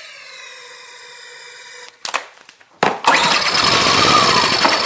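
Butane hisses steadily out of a can into the carburettor intake tube, then a short knock. About three seconds in, the Generac iQ2000's 80cc overhead-valve engine is pull-started and catches, running loudly on the butane. That it starts points to a fault in the fuel supply between the tank and the carburettor, or in the carburettor itself.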